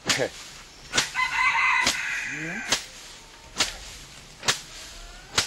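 Sharp, evenly spaced strikes about once a second as rice is threshed by hand. A rooster crows from about a second in.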